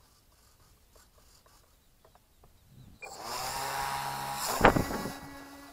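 Small propeller motor of an RC rotary-wing model aircraft starts suddenly about three seconds in and runs at full power for the launch, with one sharp thump partway through. The sound then thins to a steady hum as the model flies away.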